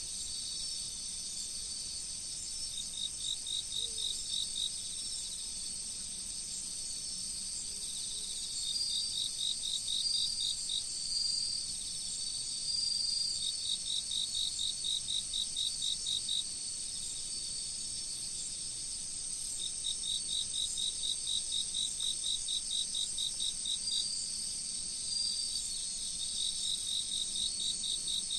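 A chorus of autumn insects (crickets) chirping: a steady high trill throughout, with one louder insect repeating pulsed trills of two to three seconds at about five pulses a second, several times over.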